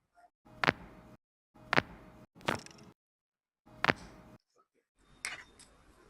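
About five sharp single cracks, spaced roughly a second apart with dead silence between them: joints popping under a chiropractic adjustment for lower back pain.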